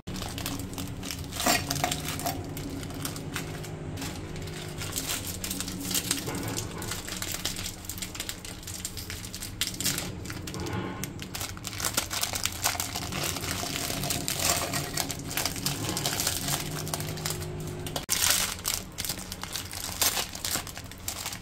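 Crinkling and crackling of foil-lined plastic biscuit wrappers being torn open and handled, in irregular bursts with a few louder crackles.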